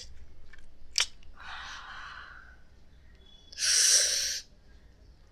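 Breathy mouth noises from a person, close to the microphone: a soft click about a second in, then a faint hissing draw of air, then a louder one about a second long near the end.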